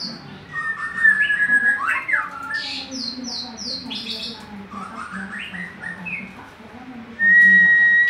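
White-rumped shama (murai batu) singing: a varied, fast run of whistled phrases and quick falling notes, then one long, steady whistle near the end.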